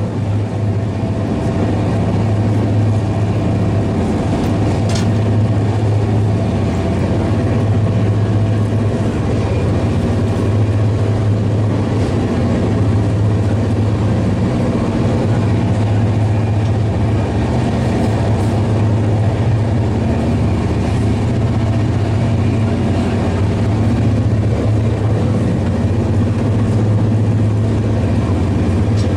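Steady running noise of an Indian Railways Shatabdi Express passenger coach heard from inside, wheels on rails at about 150 km/h, with a strong low hum under an even rumble.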